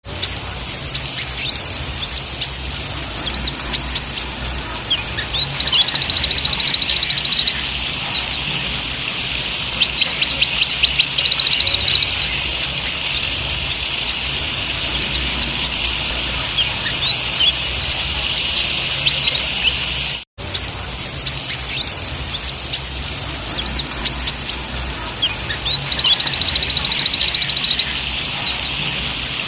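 Sunbirds (konin, kolibri ninja) singing: a busy stream of short high chirps broken by several fast, high trills lasting a second or more each. The sound cuts out for an instant about twenty seconds in.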